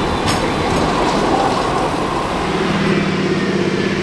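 Croydon tram moving along the platform close by, a steady rumble of wheels on rail. A sharp metallic click about a third of a second in, and a low steady hum with a fast pulse comes in about halfway.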